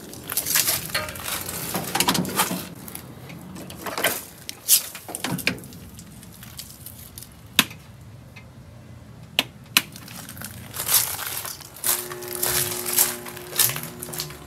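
Irregular rustling and crinkling as objects are handled, broken by several sharp clicks or knocks. Near the end a faint steady hum of two tones comes in.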